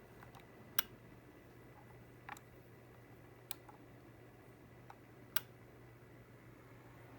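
1978 Mitsubishi Kirigamine MS-1803R air conditioner indoor unit running on fan only: a faint, steady low hum with scattered sharp ticks, four of them louder.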